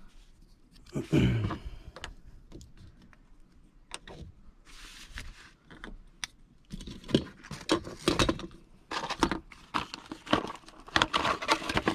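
Small clicks and metallic rattles of hand tools and parts being handled, sparse at first and busier in the second half, with a brief hiss about five seconds in.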